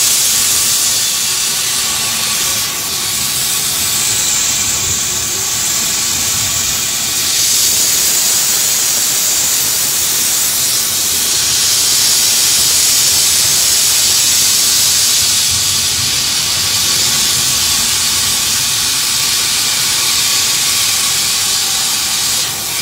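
Steady, loud hiss inside the cab of a moving locomotive, strongest in the upper range, with the train's running noise faintly underneath.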